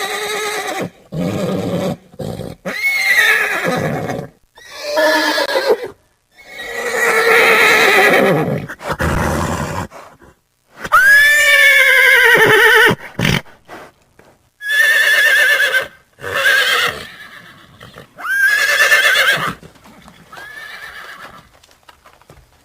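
Horses neighing: about ten separate whinnies one after another, each a loud, wavering high-pitched cry, several sliding down in pitch at the end, with short silent gaps between them.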